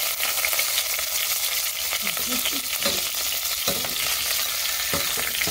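Chicken legs sizzling steadily as they brown in hot oil in a saucepan, with a few short knocks of metal tongs against the pan as the pieces are turned, near the end.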